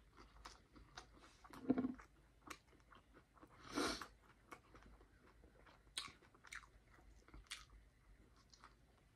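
Close-miked chewing of a ground-beef burrito, with many small wet mouth clicks and smacks. Two louder swishes come through, about two and four seconds in.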